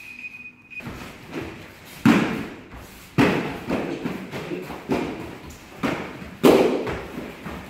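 Taekwondo sparring: kicks land with thumps on the fighters' padded chest protectors, the hardest about two, three and six and a half seconds in, with lighter hits and footfalls on the foam mat between. A steady high beep cuts off about a second in.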